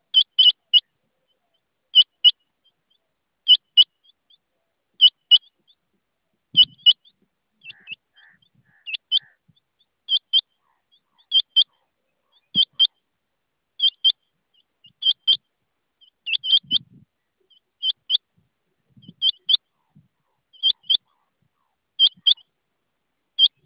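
Rain quail calling: a sharp, high double note repeated steadily about every second and a half.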